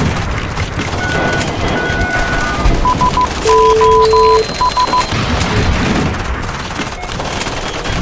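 Soundtrack of rapid machine-gun fire and explosions, a dense run of cracks and booms, with electronic beeps and short steady tones sounding over it through the middle.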